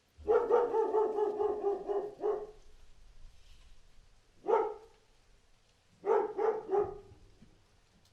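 A dog barking in three bouts: a rapid string of barks lasting about two seconds, a single bark about four and a half seconds in, and another quick string of barks about six seconds in.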